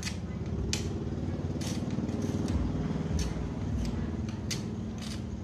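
Glass being chipped and snapped at the edge with hand pliers: short sharp clicks and crunches about once a second, over a steady low rumble.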